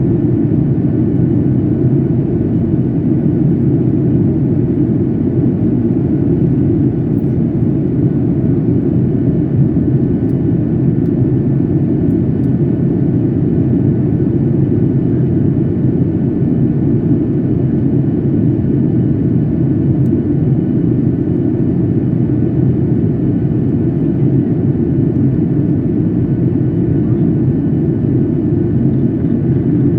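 Airliner cabin noise on the approach to landing: the steady, loud low rumble of the jet engines and rushing airflow, with a faint steady whine above it.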